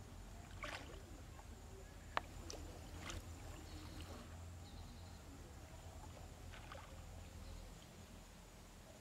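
Light water splashes and sloshing from a plastic-bottle fish trap float bobbing and tipping on the surface, pulled about by a fish caught beneath it. A few short splashes over a low steady hum, with one sharp click about two seconds in.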